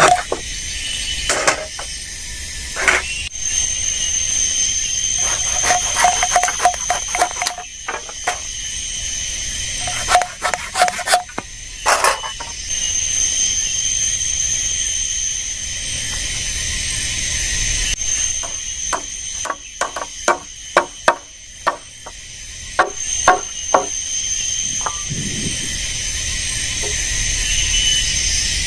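A steady high-pitched drone held at a few fixed pitches, broken by sharp knocks and taps. The knocks come in clusters, the busiest a rapid series of about two or three a second between about 19 and 24 seconds in.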